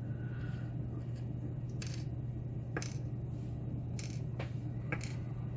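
Several light, sharp metallic clicks and taps spread through, as small lock pins and parts of a disassembled pin-tumbler lock are handled and set down, over a steady low hum.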